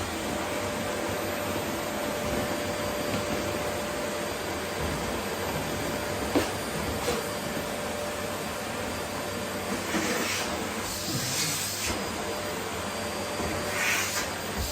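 Vacuum cleaner running steadily with a constant hum, vacuuming up rose petals from a wooden floor. There are a few sharp clicks, and brief louder hissing surges about two-thirds of the way through and again near the end.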